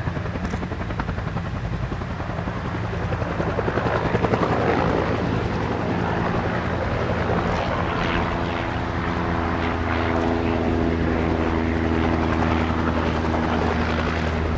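AH-1 Cobra attack helicopter hovering low, its two-blade main rotor beating rapidly over the steady run of its turbine engine. It grows louder over the first few seconds, then holds steady, and a set of steady higher tones joins about eight seconds in.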